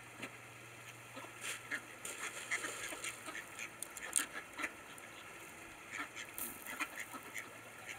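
A flock of ducks feeding on grain spread on concrete: many short, irregular clicks of bills pecking at the ground, with brief soft quacks scattered among them.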